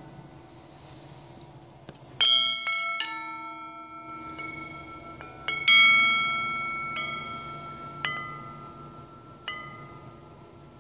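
Wind chime made of steel shotgun barrels, struck by its hanging wooden clapper about eight times from about two seconds in. Each strike rings on in long, clear bell-like tones, the loudest a little after two seconds in and near six seconds.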